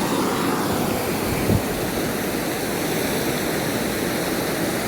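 Mountain river flowing: a steady rush of water.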